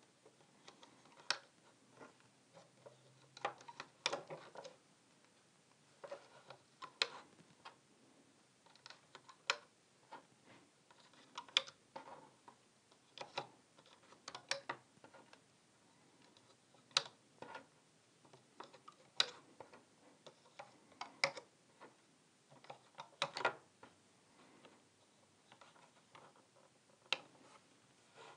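Rubber bands being stretched onto the plastic pins of a Rainbow Loom by hand: faint, scattered clicks and taps, one every second or two.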